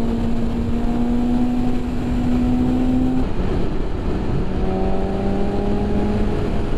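BMW S1000RR's inline-four engine running under steady throttle at speed, its note slowly climbing, dropping to a lower pitch about three seconds in and rising again near the end. Heavy wind and road rush on the microphone.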